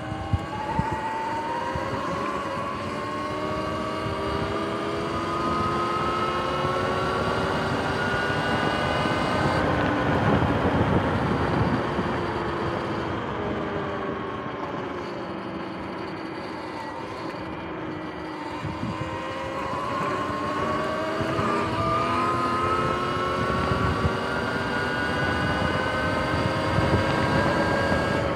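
Sur-Ron X electric dirt bike riding, its motor and freshly replaced chain and sprocket giving a whine. The pitch rises as the bike speeds up over the first ten seconds, falls as it slows, and rises again in the second half, over a steady rumble of wind and tyres.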